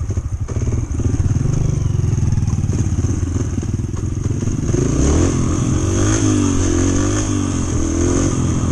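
Yamaha TT-R125 single-cylinder four-stroke dirt bike engine heard from on board, running at low revs as the bike creeps along. About halfway through the revs rise and dip a few times as the rider opens the throttle and pulls away.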